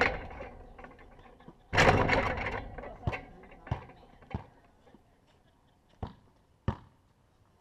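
A basketball strikes the backboard that the camera is mounted on: a loud hit at the start and a second, louder one under two seconds in, each followed by a rattling ring-out of the hoop. Then the ball bounces on the concrete driveway, about five sharp separate bounces.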